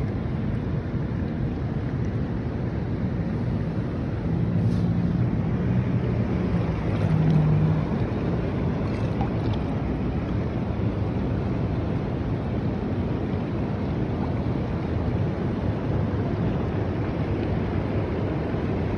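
Steady rushing of shallow running water over a gravel bed, with a low hum swelling for a few seconds about four seconds in.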